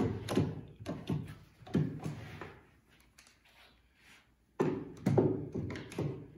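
One-handed bar clamps being squeezed tight onto a wooden board: a series of short ratcheting squeezes and knocks, a pause of about two seconds in the middle, then a louder run of squeezes near the end.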